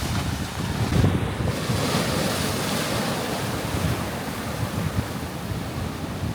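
Ocean surf surging and washing over a rocky shore, with a swell about a second in. Wind buffets the microphone with low rumbles throughout.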